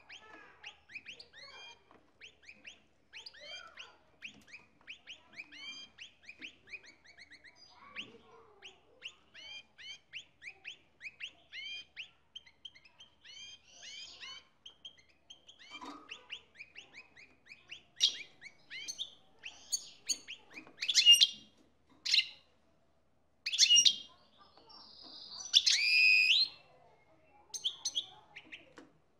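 Male European goldfinch in breeding condition singing its courtship song, a fast twittering run of chirps. In the second half it breaks into several much louder calls, with a longer, stronger note near the end.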